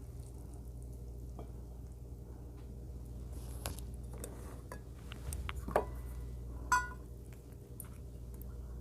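Eating at the table: utensils clicking and scraping against dishes as food is mixed and picked up, with two brief ringing clinks near the middle, over a steady low hum.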